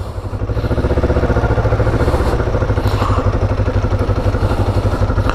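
Kawasaki Ninja 500's parallel-twin engine running steadily as the motorcycle rolls slowly along, with an even exhaust beat.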